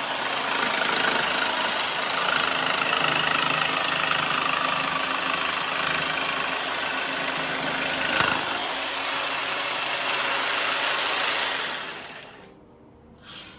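Jigsaw mounted upside down in a bench vise, running steadily on its lock-on button while its blade saws a straight cut through a workpiece. Near the end the saw winds down and stops.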